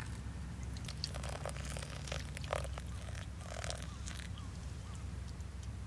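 Hot water poured in a thin stream from a kettle onto coffee grounds in a paper filter, with soft crackling and pattering as the grounds bubble, over a steady low hum. Faint short chirps come in during the second half.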